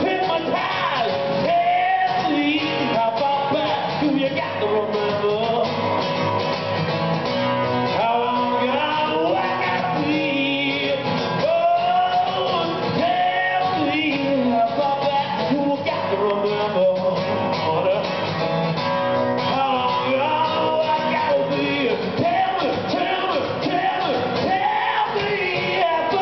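A man singing while strumming an acoustic guitar, a live song with a steady strummed rhythm under the vocal melody.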